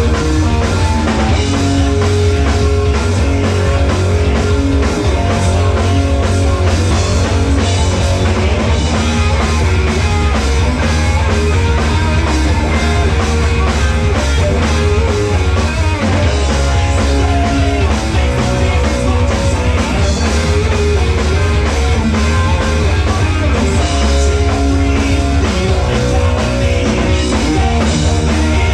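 Live rock band playing loud, with distorted electric guitars, bass guitar and a drum kit pounding without a break.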